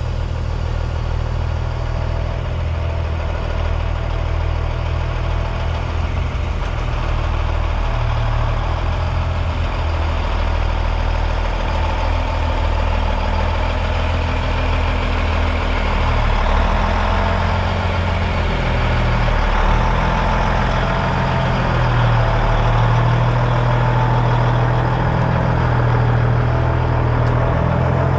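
1998 Peterbilt semi truck's diesel engine running steadily.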